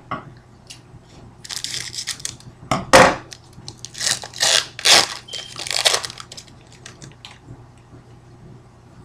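Trading-card pack wrapper crinkling and crackling as it is opened, with a run of loud sharp crackles between about two and six seconds in, then faint rustles of cards being handled.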